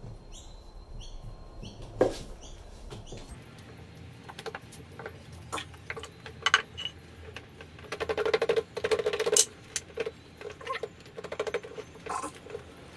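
Hand tools and metal parts being handled while the drive motor of a Samsung front-loading washer is unbolted. A few short squeaks come in the first two seconds, then a sharp knock about two seconds in, then irregular clicks and metallic rattling, busiest about eight to nine and a half seconds in.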